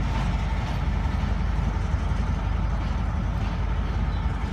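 Diesel locomotive engines running steadily, a continuous low rumble.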